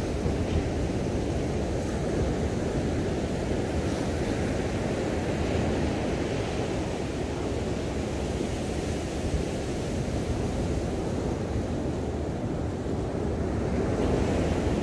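Ocean surf breaking and washing up a sandy beach in a steady roar, with wind rumbling on the microphone. The hiss of the wash swells about five seconds in and again near the end.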